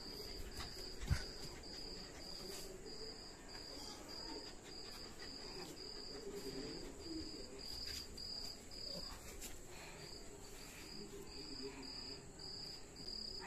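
Cricket chirping in short high pulses, about three a second, with a single low thump about a second in.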